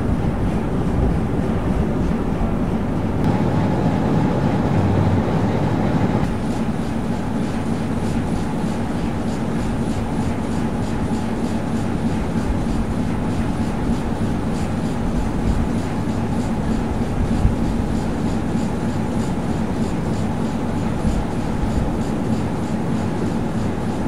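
A single-screw marine diesel engine on a 1948 harbour tug running steadily under way: a deep, steady drone with an even, rhythmic clatter on top.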